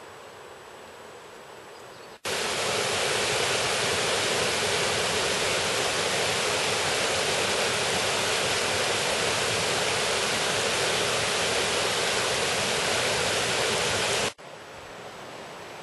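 White water of a river rapid rushing over rocks, a loud, even rush that starts abruptly about two seconds in and cuts off suddenly near the end. Around it is only a faint outdoor ambience.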